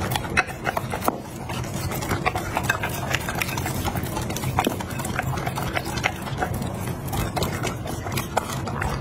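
Chocolate Labrador retriever eating a raw meal of meat, fruit and vegetables from a glass bowl: wet chewing and lapping, with many irregular sharp clicks.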